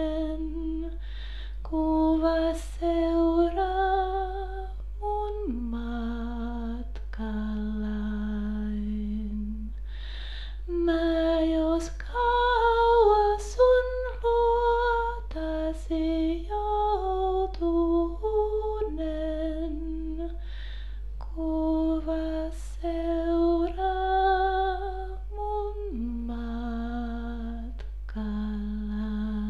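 A woman singing a slow, lullaby-like song in Finnish as a single voice, her notes held and moving gently, over a steady low hum.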